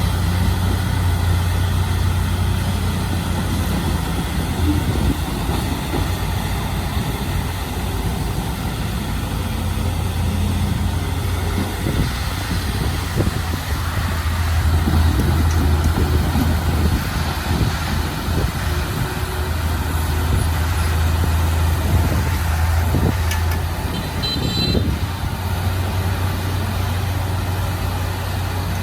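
Heavy diesel engine of earthmoving machinery running steadily under load, a deep even hum that swells and eases a little. A short high-pitched beeping sounds near the end.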